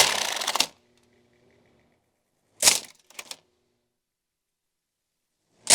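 Bamboo sticks clattering against the spinning plastic blades of a box fan in short rapid bursts: one under a second long at the start, another about two and a half seconds in followed by a couple of clicks, and a last one near the end, with dead silence between.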